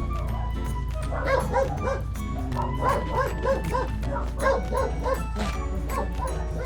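Dog barking in a quick run of short barks, about three a second, which fade out near the end.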